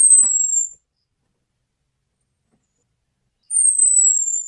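Orange-headed thrush giving two thin, very high whistled calls. Each call is under a second long and falls slightly in pitch, and they come about three and a half seconds apart.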